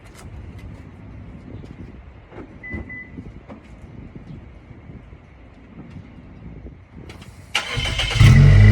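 A low background with a few faint clicks and a short beep, then near the end a Suzuki Swift Sport ZC33S's 1.4-litre turbocharged four-cylinder starts: a brief crank, then it catches and settles into a loud, steady idle heard from outside the car.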